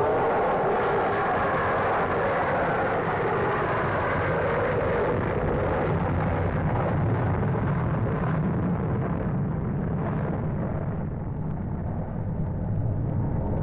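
Jet noise of an RAF Vickers VC10's four rear-mounted Rolls-Royce Conway engines at takeoff power: a loud, steady rushing rumble. Its higher part fades after about eight seconds, leaving a low rumble.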